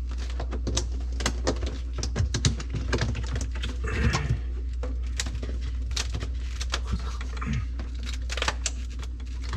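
Irregular light clicks and knocks of plastic refrigerator parts being handled and pried at, over a steady low hum.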